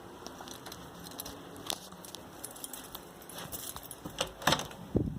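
Faint handling noises: a few light clicks and knocks, with a low thump near the end.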